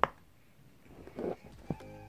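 A silicone pop-it fidget toy's bubble popping once with a sharp click under a finger, then a softer press about a second in. Background music starts near the end.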